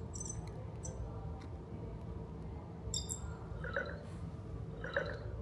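Emo desktop robot's electronic sound effects: a few light clicks, then two short warbling beeps about a second apart in the second half, as it answers a battery-level request by showing a battery icon on its face.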